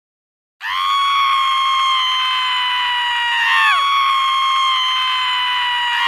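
High-pitched human screaming starting about half a second in: two long screams held on a steady pitch. Each ends in a sudden downward slide in pitch as the next one starts, the second near the end.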